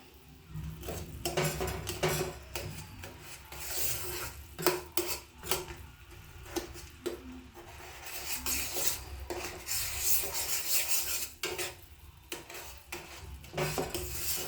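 A spoon stirring and scraping melting jaggery around the bottom of a pan, in irregular rasping strokes.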